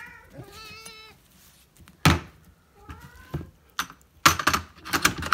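A cat meowing, three short calls, with a single loud knock about two seconds in. Near the end comes a rattling clatter as the wire door of a plastic pet carrier is swung shut.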